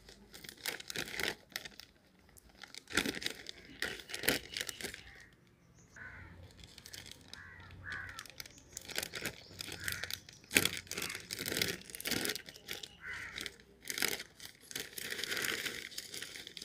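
A crisp plastic chips packet crinkling and rustling as it is handled, then pulled and torn open along its top seam.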